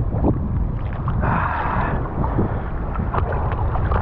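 Choppy surf sloshing and splashing right at a camera just above the water, with wind buffeting the microphone; a hooked speckled trout splashes at the surface as it is brought to hand near the end.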